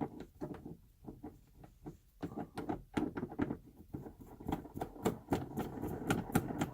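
Weighted TRD shift knob being turned by hand onto the shift lever's threads: a rapid, irregular run of small clicks and scrapes that thickens into a steady rasping rub over the last few seconds.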